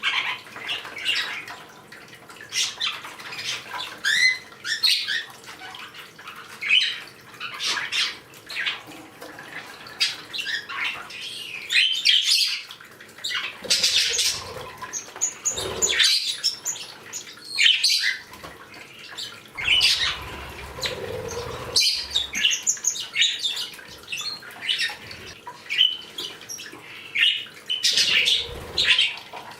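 Several pet birds chirping and squawking in short, overlapping calls, with scattered short sharp clicks among them.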